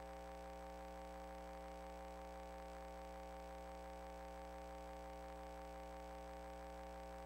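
Steady faint electrical hum made of several fixed tones over a light hiss, unchanging throughout.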